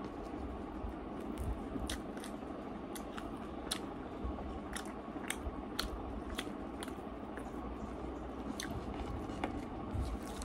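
A person eating rice and curry with the fingers, close to the microphone: chewing with sharp wet mouth clicks and smacks scattered throughout, and fingers squishing food on the plate, over steady background noise.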